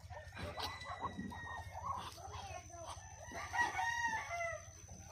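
A rooster crowing among clucking chickens, its loudest and longest call a little past the middle.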